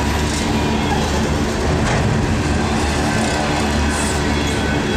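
Freight train cars rolling past: flatcars loaded with containers give a steady rumble and rattle of steel wheels on the rails.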